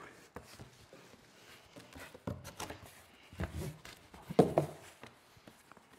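Large cardboard shipping box being handled and slid out of an outer carton: scattered bumps and scrapes of cardboard, the loudest knock about four and a half seconds in.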